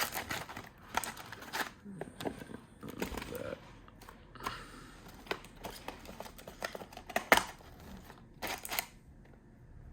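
A trading-card retail box being opened and its packs handled by hand: scattered cardboard and wrapper rustling and tearing with sharp clicks and taps, the loudest a sharp click about seven seconds in.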